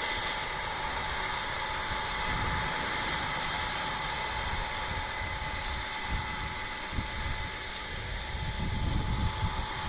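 Corn harvesting machinery, most likely a combine harvester, running steadily with a constant high whine over a low rumble. Heavier low buffeting comes in near the end.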